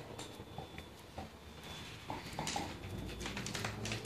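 Dogs moving about close by: faint, scattered taps and rustles, a little busier in the second half, with no barking.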